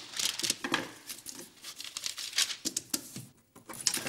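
Paper crinkling and a pen scratching across a paper form, in quick irregular strokes.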